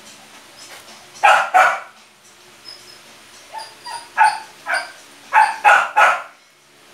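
Small shaggy dog barking: two loud barks about a second in, several softer barks, then three loud barks in quick succession near the end.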